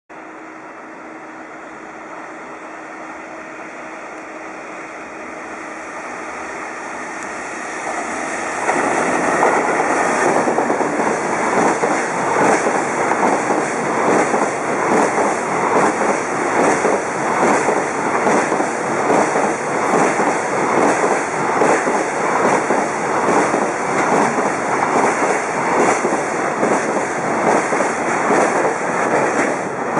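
JR Freight EF210 DC electric locomotive hauling a high-speed container train, approaching with a rising rumble and a steady hum, then passing close at speed about eight and a half seconds in. The container wagons follow, their wheels clattering in a steady rhythm over the rail joints.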